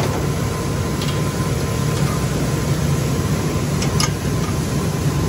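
Steady low hum of factory machinery with a faint high tone over it, and two light clicks, about a second in and near four seconds.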